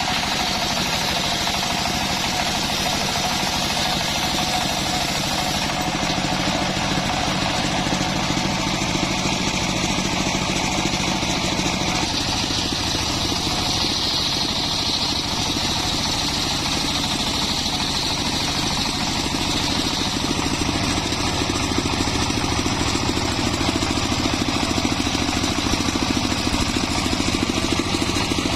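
A homemade engine-driven circular sawmill (serkel) running steadily, with a high whine that grows stronger and weaker at times.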